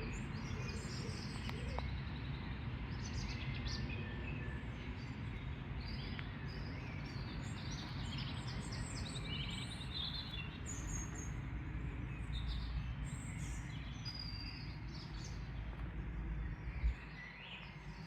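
Several small birds chirping and twittering, many short calls overlapping, over a steady low rumble of background noise. A single brief knock sounds near the end, after which the rumble drops.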